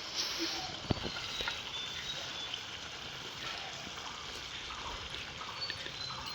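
Taro greens cooking with a hilsa fish head in a pan, with a steady sizzling, bubbling hiss. There is a sharp click about a second in.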